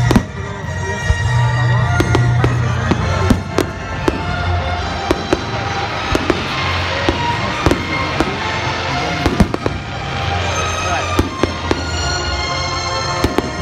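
Fireworks display: repeated bangs and crackling of aerial shells bursting, with music playing along.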